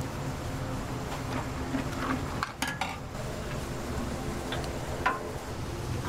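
Commercial street-food kitchen sounds: a steady low hum of gas burners under a wok of simmering sauce, with a few short metal clinks and scrapes of utensils about two and a half seconds in and again about five seconds in.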